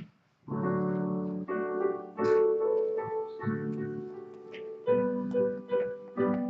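Piano playing the introduction to a hymn in slow, held chords, starting about half a second in.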